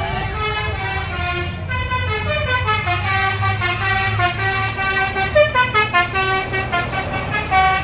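Bus 'telolet' musical horn playing a melody of short held notes stepping up and down, over the low rumble of the bus engine.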